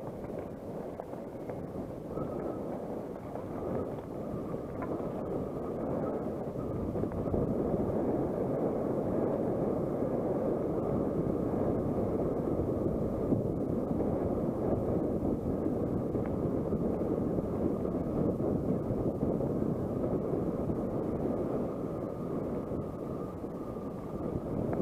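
Wind rushing over the microphone of a camera on a moving mountain bike, mixed with tyres rolling over a gravel dirt track. It grows louder over the first several seconds, then holds steady.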